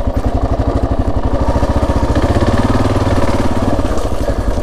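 Kawasaki KLR650's single-cylinder four-stroke engine running as the dual-sport bike rides along a sandy dirt trail, with an even pulsing exhaust beat; the revs rise a little about two seconds in.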